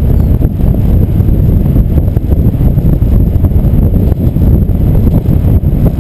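Wind buffeting a camera microphone riding on a vehicle's loaded bike rack while driving: a loud, steady low rumble, with the vehicle's road noise underneath.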